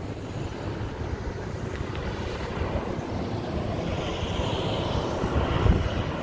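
Wind buffeting the microphone over the rumble of street traffic, with a vehicle drawing closer and passing in the last couple of seconds.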